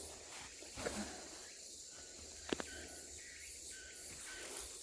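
Forest ambience: a steady, faint high insect chorus, with one sharp click about two and a half seconds in and a few faint short high notes near the end.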